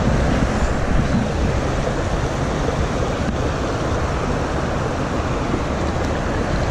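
Steady rush of a shallow river flowing around rocks.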